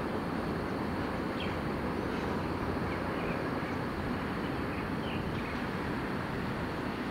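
A steady, even rumble with a few faint, short high chirps over it.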